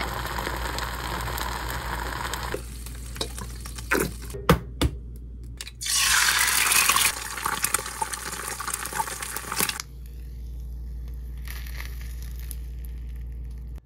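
Kitchen cooking sounds: a pot of black bean sauce simmering on the cooktop, then two sharp knocks, then an egg dropped into hot oil in a frying pan, sizzling loudly about six seconds in and frying on more quietly.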